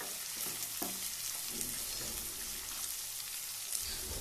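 Chopped vegetables and green peas sizzling in hot oil in a non-stick kadai, with a wooden spatula scraping through them during the first second or so.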